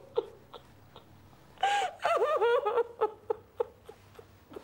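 A woman sobbing after grave news: short catching breaths, then a run of broken, wavering cries about two seconds in, then more short catches.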